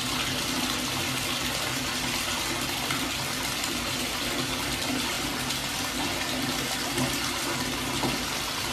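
Bath tap running, a steady stream of water splashing into the tub.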